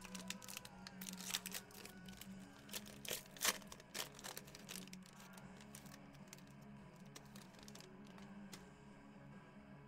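Foil trading-card pack wrapper being torn open and crinkled by hand: a run of sharp crackles and rips for the first four or five seconds, then it goes quieter.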